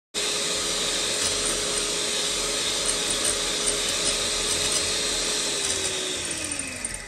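TEO Pro electric hand mixer whipping egg whites and sugar into stiff meringue in a glass bowl. It starts abruptly and runs with a steady whine, then winds down near the end as it is switched off.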